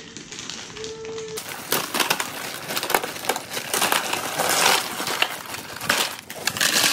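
Ice cubes poured out of plastic bags into plastic basins: a dense, irregular clatter of cubes knocking against each other and the basin, starting about a second and a half in.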